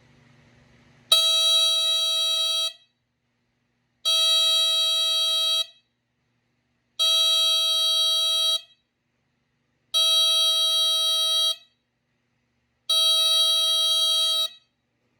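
Westclox 83083 9-volt smoke alarm's electromechanical horn sounding on test: five long, high-pitched blasts, each about a second and a half, repeating about every three seconds.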